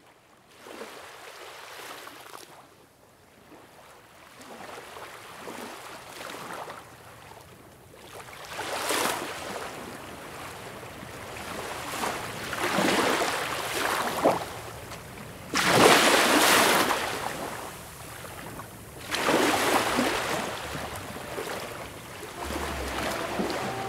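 Ocean waves breaking and washing in, swells of surf every three to four seconds that grow louder. Music comes in faintly near the end.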